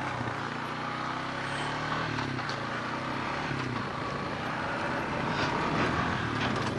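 Honda four-wheeler's engine running at low revs while the quad coasts in neutral, its tone sagging slightly in pitch over the first couple of seconds, then a steady rumble of the quad rolling.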